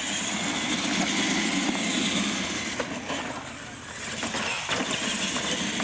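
Electric R/C monster trucks accelerating from a standing start, their motors and gearing whining up in pitch as they pull away, over a rough rumble of tyres on dirt. The whine dips about three and a half seconds in, then rises again.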